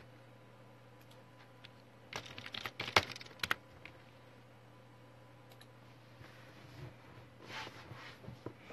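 A quick run of taps and clicks for about a second and a half a couple of seconds in, then fainter rustling near the end: fingers tapping and handling a smartphone close to its microphone.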